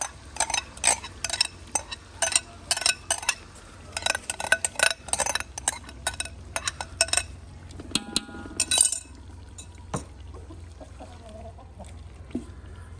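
Spatula scraping and tapping yogurt out of a plastic bowl over an aluminium cooking pot: a quick, irregular run of clicks and knocks for about seven seconds, then only scattered taps. A short pitched sound stands out about eight seconds in.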